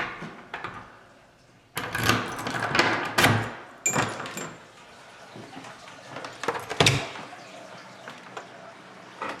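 Knocks, rattles and clatter of someone handling and moving things about: a cluster of them about two to four and a half seconds in, and a single sharp knock about seven seconds in.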